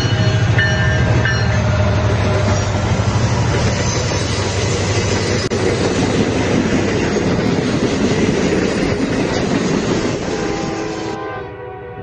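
Model CN diesel locomotive and its train running on a model railway layout: a loud, steady rolling noise of the wheels on the track that drops away sharply near the end.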